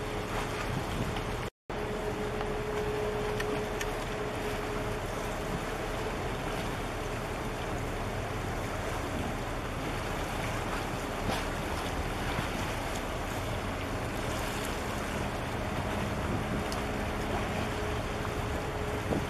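Wind rushing on the microphone over harbour water washing against the breakwater, with a faint steady engine hum from the container ship and her tug underneath. The sound cuts out for a moment about a second and a half in.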